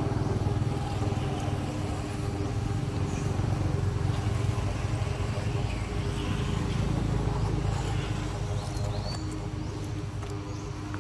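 A motor engine running steadily at a constant low pitch, with a few faint short high chirps over it.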